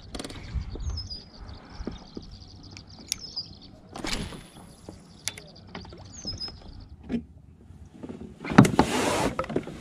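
Spinning reel being cranked through a retrieve, with light clicks and knocks of gear in the kayak and a louder rustling stretch near the end. A songbird repeats a short high trill a few times in the background.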